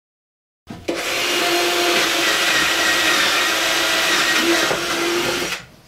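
Cordless drill running at a steady speed, boring a pilot hole into a wooden drawer front. It starts abruptly under a second in and cuts off sharply near the end.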